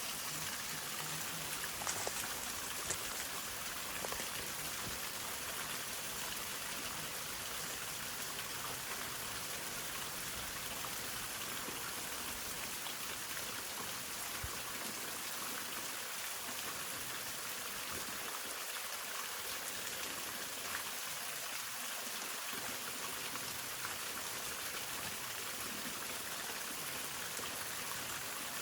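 Hongryu Falls waterfall: water falling and splashing in a steady, even hiss that sounds like heavy rain, with a few faint ticks about two seconds in.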